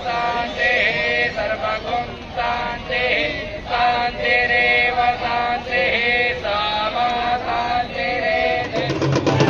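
Devotional Hindu aarti chant, sung in held phrases about a second long. Just before the end a fast, steady beat of drums and percussion comes in.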